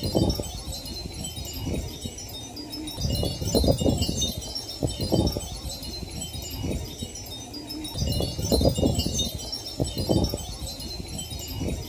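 Thousands of small hanging glass pieces on a glass tunnel tinkling against one another in the breeze, a dense, continuous high clinking like wind chimes. Low gusts of wind rumble on the microphone every few seconds.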